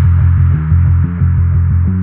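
Loud, deep bass throbbing in a repeating pattern of low notes, like the bass line of an electronic music track.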